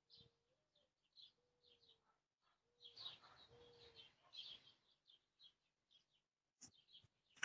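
Faint outdoor bird chirping: a string of short, high chirps every half second or so, through the doorbell camera's microphone.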